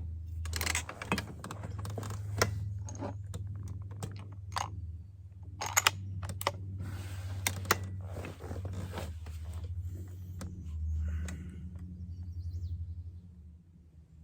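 A bolt-action rifle being handled and readied at a shooting bench: a run of irregular sharp clicks, rattles and scrapes, with a steady low hum underneath. It dies down near the end.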